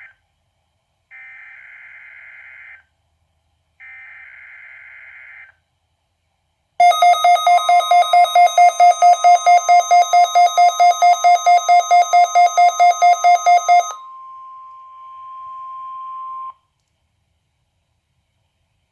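NOAA Weather Radio SAME digital header: two buzzing data bursts about a second apart. A weather alert radio's alarm then beeps loudly, about four beeps a second for roughly seven seconds, over a steady single tone near 1 kHz that runs on faintly for about two seconds more before cutting off. The beeping is the receiver, a Midland WR-120, activating on the Required Weekly Test.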